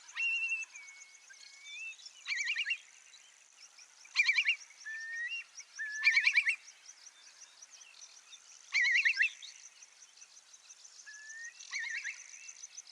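Birds calling: short, rapid trilled calls that come again every two to three seconds, with slower whistled notes sliding up in pitch between them. A steady high buzz runs underneath.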